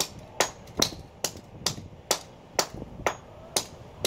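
Rapid repeated blows smashing a camcorder's chip board, sharp knocks about two a second, around ten strikes.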